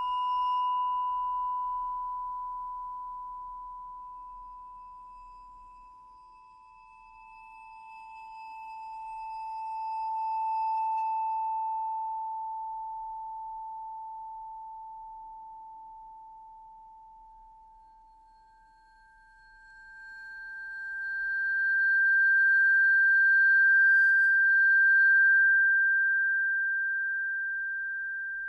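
Music of long, pure ringing tones, one after another. A mid tone fades away over the first few seconds, a slightly lower one swells and dies away, and about two-thirds of the way through a higher tone swells up, the loudest of the three, then slowly fades.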